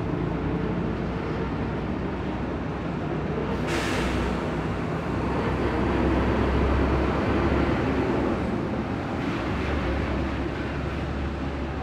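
Anime sound effects of road bikes racing: a steady rush of wind with the whirr of spinning wheels and chain, and a sudden hiss about four seconds in.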